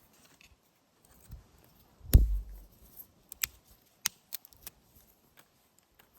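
Fire-lighting gear being worked by hand: a heavy thump about two seconds in, then about half a dozen short, sharp scraping strikes over the next few seconds.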